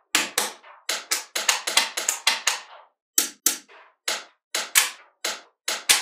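Small magnetic balls clicking and clacking as rows of them snap together and are pressed onto a larger slab of balls. There are about twenty sharp clicks in quick, irregular succession, densest in the first three seconds and more spaced out after that.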